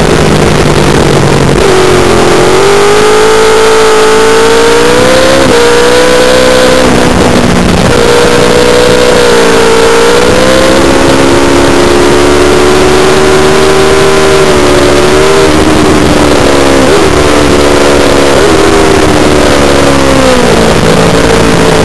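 Honda VFR's V4 engine heard on board at track speed, loud, its pitch climbing under acceleration and dropping sharply at gear changes, then falling through several steps near the end as it slows. Wind rush over the microphone runs underneath.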